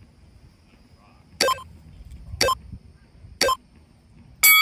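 Interval timer counting down: three short beeps a second apart, then a longer, louder beep near the end marking the end of a 20-second work interval and the start of the 10-second rest.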